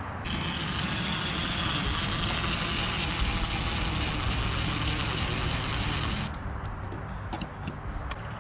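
Cordless impact driver running steadily, driving a screw to fasten a dryer vent hood to the RV's wall. It stops about six seconds in, followed by a few light clicks.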